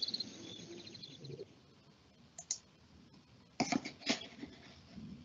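Sharp computer mouse clicks: one about two and a half seconds in and a quick cluster about three and a half to four seconds in. Before them, a rhythmic high chirping fades out during the first second and a half, then there is a short near silence.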